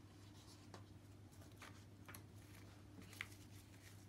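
Near silence: steady low room hum with a few faint light ticks.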